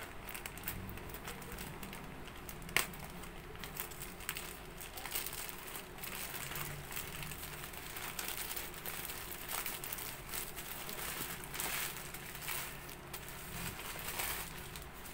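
Plastic packaging crinkling and rustling as a parcel is unwrapped by hand, with one sharp snap about three seconds in.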